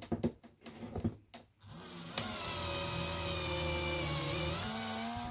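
Bosch cordless drill boring out a float-bowl screw thread in a soft pot-metal motorcycle carburetor body with a Helicoil kit's M4 drill bit, to take a thread insert. A few handling clicks come first, then about three seconds of steady motor whine whose pitch rises slightly just before it stops.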